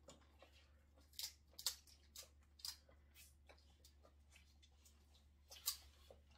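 Faint eating sounds: scattered short cracks and crunches of steamed king crab shell being broken and picked apart, with a cluster of them about a second in and another near the end.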